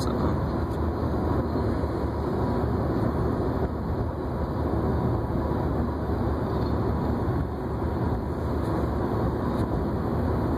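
Steady road and engine noise heard inside the cabin of a moving car, a low, even rumble.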